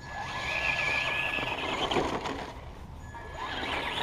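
Electric motor and drivetrain of a Traxxas Slash 2WD RC truck whining under throttle: a high whine that climbs and holds for about two seconds, drops away, then climbs again near the end as the truck is driven over snow.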